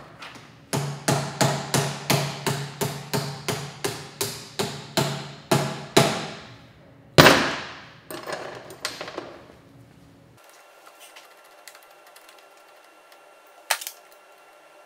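Rubber mallet tapping a bar-end brake lever guard's mount into a snug clip-on handlebar: a quick run of knocks, about three a second, then one harder blow and a few lighter taps. After that only a few faint clicks.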